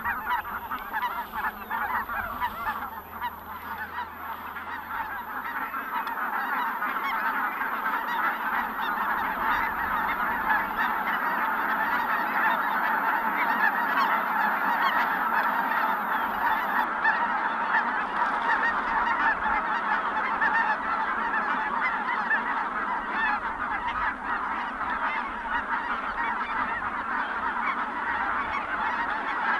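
Large flock of geese, Ross's geese among them, calling all at once in a dense, continuous chorus of overlapping honks and cackles.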